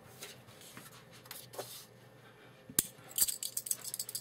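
CRKT Keydashi keychain knife handled in the fingers: a sharp metal click about two-thirds of the way in, then a quick run of light clicks and clinks.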